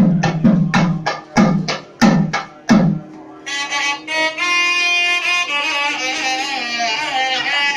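South Indian temple music: a run of hand-drum strokes, about three a second, then about three and a half seconds in a sustained melodic instrument line with sliding, ornamented pitch takes over.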